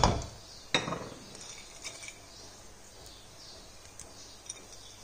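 A spoon knocking against a ceramic plate and a pot as fried cashews are scraped onto cooked rice. There is a clatter of knocks at the start, another knock just under a second in, then only a few light ticks.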